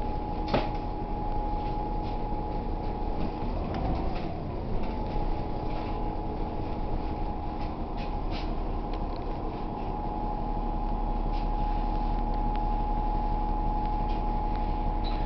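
Interior noise of a New Flyer low-floor city bus under way: steady drivetrain drone with a constant high whine over road rumble, broken by a few sharp rattles. The drone wavers in pitch around four seconds in.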